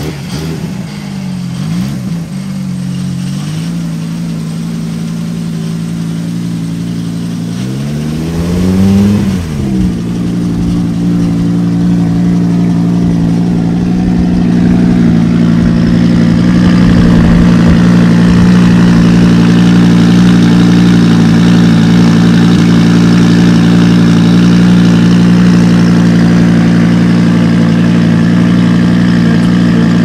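Audi Sport quattro S1 Group B rally car's engine idling, with small throttle blips near the start and one quick rev up and back down about eight seconds in. It then settles into a steady, slightly higher idle that grows louder over the following seconds.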